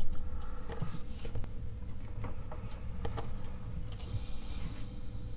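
Faint scattered clicks and taps of a small circuit board being handled, over a low steady hum.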